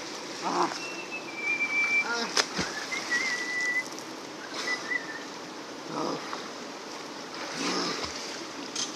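Steady rush of river water with splashing from people in it, and a few short, high whistled notes in the first half.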